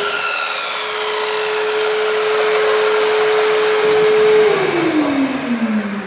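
A mitre saw and the Bosch GAS 15 wet/dry vacuum extracting from it, running together with no cut being made; the saw is plugged into the vacuum's tool socket. Both run steadily, then about four and a half seconds in they are switched off and wind down, the pitch falling.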